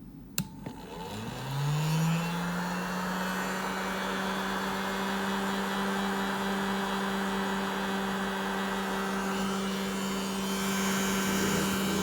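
Electric heat gun switched on with a click, its fan motor spinning up over about a second to a steady hum with a rush of blown air. The hiss of the air grows a little louder near the end.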